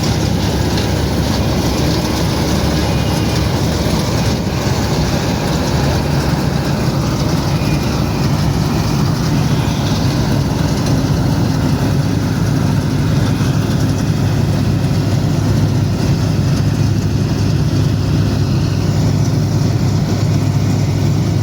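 Mahindra Arjun Novo 605 tractor's diesel engine running steadily under load while harvesting wheat.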